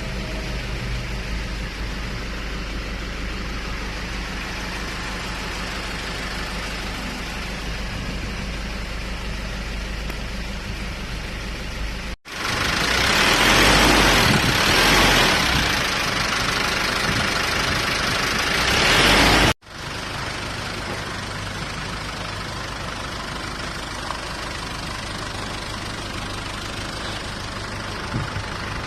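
A motor vehicle engine idling steadily. For about seven seconds in the middle a much louder, harsh noise takes over, starting and stopping abruptly.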